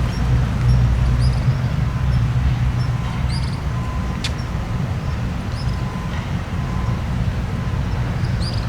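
Steady low engine rumble, like a marine engine idling, with a few short high chirps over it and a single click about four seconds in.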